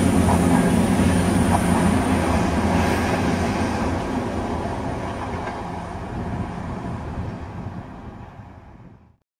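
Freight train of enclosed wagons rolling past, its wheels rumbling on the rails, fading steadily as the train draws away; the sound cuts off abruptly near the end.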